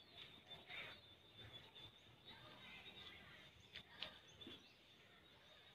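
Near silence: faint outdoor ambience with a few soft, short chirps and ticks, the most distinct about four seconds in.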